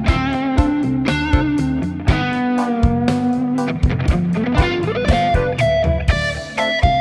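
Electric guitar played through a Fractal Audio Axe-Fx III amp model, with delay and light compression, playing a melodic single-note lead of sustained, bending notes. Under it runs a backing groove with a steady drum beat and a bass line.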